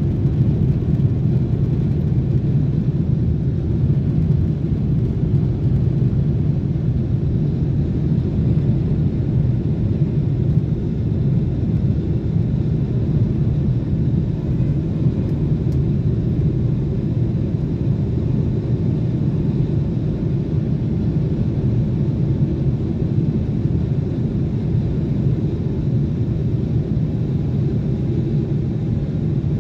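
Cabin noise of a Boeing 777-300ER at takeoff thrust, heard over the wing as it lifts off and climbs. Its GE90-115B turbofans give a steady, loud, low rumble.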